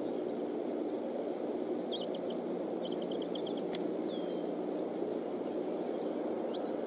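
Faint high bird chirps: a short run of quick notes two to three seconds in, a falling whistle about four seconds in and a single short note near the end, over a steady low rushing background noise.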